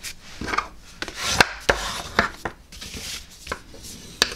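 Folded cardstock being pressed flat on a board while a bone folder rubs along the fold to sharpen the crease: a run of scraping strokes and sharp taps.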